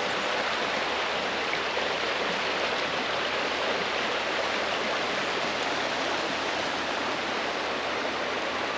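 River water running in a steady, even rush with no breaks.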